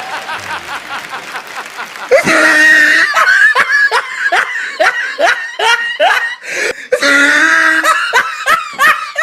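Women laughing: softer for the first two seconds, then a loud run of short ha-ha bursts, each falling in pitch, with one longer drawn-out laugh near the end.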